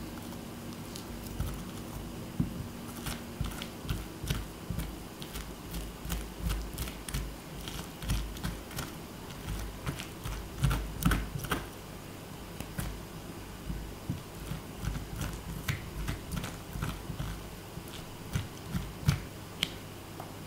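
Metal spoon scraping seeds and stringy pulp out of a halved pumpkin: irregular scrapes and clicks, some sharper than others.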